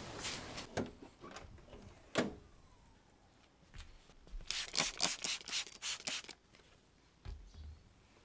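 Handling noises: a few scattered knocks, then a quick run of short scratchy sounds about halfway through, and a soft low thud near the end.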